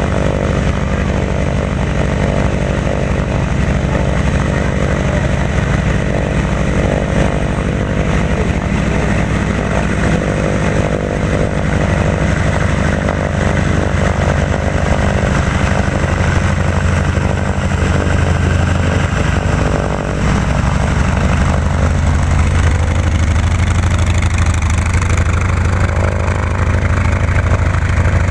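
North American T-28 Trojan's nine-cylinder radial engine and propeller running steadily at low taxi power, close by.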